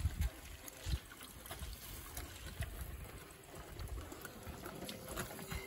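Tomato juice trickling and dripping through a wire-mesh screen into a wide metal basin, with wet squishing of hands pressing the tomato pulp near the start.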